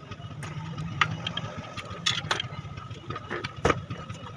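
An engine or motor running steadily with a low hum, with several sharp metallic clicks and knocks over it, the loudest about a second in and again near the end.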